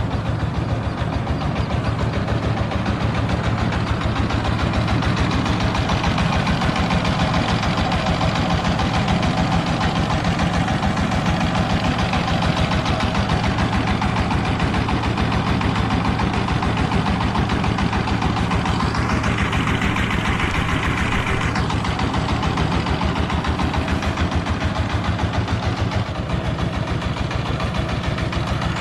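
Diesel engine of a mobile rice huller running steadily with a fast, even thumping pulse. About two-thirds of the way in, a brief hiss rises over it for two or three seconds.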